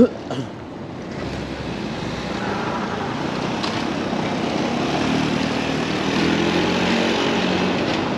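A knock on the microphone, then a car driving on a wet cobblestone street. The rumble and hiss of its tyres grow steadily louder as it comes closer.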